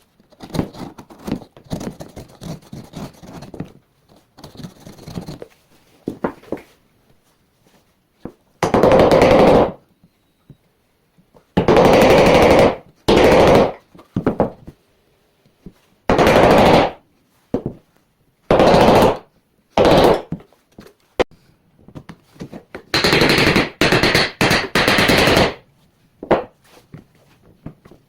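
Woodworking hand tools on timber: scattered sharp knocks and taps, then a string of loud strokes each lasting about a second, with a longer dense run near the end.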